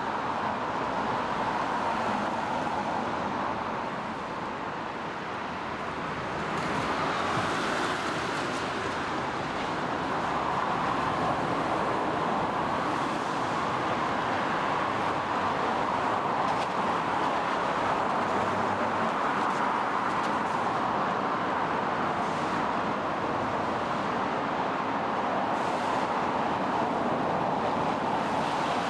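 Traffic on a rain-wet road: a steady hiss of tyres on wet asphalt, louder from about six seconds in, with falling rain mixed in.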